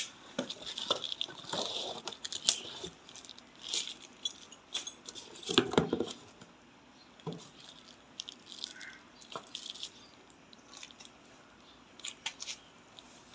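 Scattered clicks, taps and brief rustling from objects being handled, loudest about six seconds in; no motor runs.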